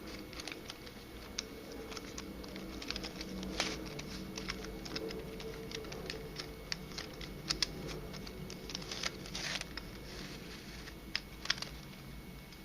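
Pieces of a 3D-printed nylon twisty puzzle (an Unbandaged Helicopter Skewb) being turned by hand, making irregular plastic clicks and light scrapes as the edges and vertices rotate.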